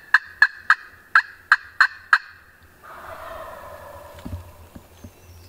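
A run of about seven sharp, evenly spaced notes from a hunter's turkey call, roughly three a second. About three seconds in, a wild turkey tom answers with a rolling gobble that lasts about a second and a half.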